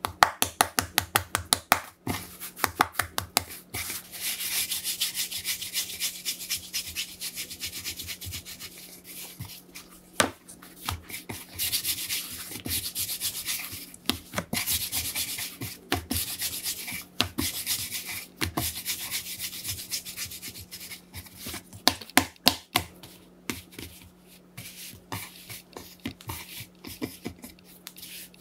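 Hands rolling a rope of soft pretzel dough back and forth on a floured bamboo cutting board: dry, hissy rubbing strokes with scattered soft taps, opening with a quick run of ticks.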